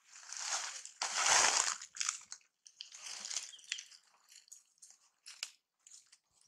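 Dry leaves crunching and rustling in a series of short crackly bursts, the loudest about a second in.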